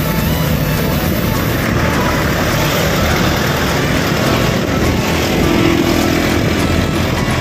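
Steady motor vehicle noise, as of engines and traffic on a road.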